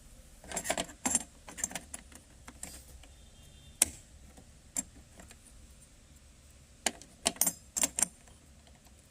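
Small metal clicks and clinks of a CPU socket's retention bracket and lever being handled and closed over a freshly seated processor, in a few quick clusters with a single sharp click in between.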